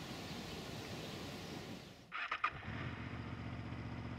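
Faint outdoor ambience, then a few quick knocks about halfway through, followed by a Honda VFR800's V4 engine running steadily at low revs, picked up by a camera mounted on the bike.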